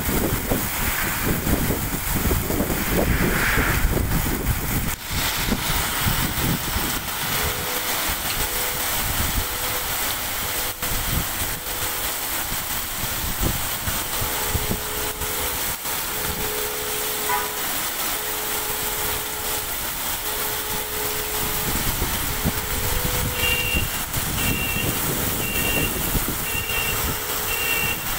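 Heavy rain pouring onto a street, a steady hiss, with a low rumble during the first few seconds. From about a quarter of the way in, a low two-tone electronic beeping repeats steadily, and near the end a higher beep joins it, about once a second.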